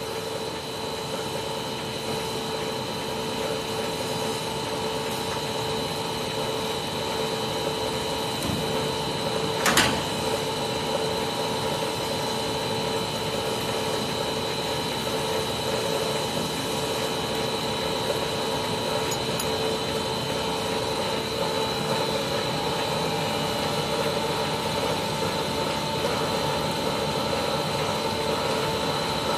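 Three-screw five-layer cast stretch film production line running, a steady machine hum with several steady whining tones. A single sharp knock about ten seconds in.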